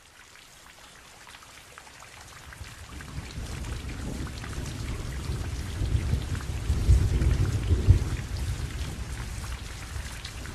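Heavy rain falling, fading in and growing louder, with a low rumble of thunder swelling in the middle.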